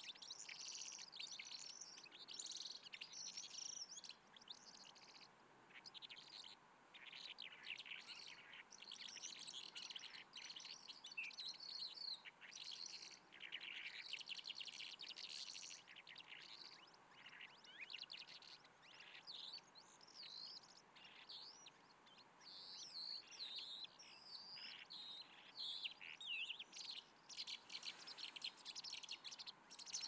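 Calandra lark singing: a fast, jumbled stream of chirps, trills and whistles that goes on almost without a break, thinning to scattered notes for a few seconds in the middle before picking up again.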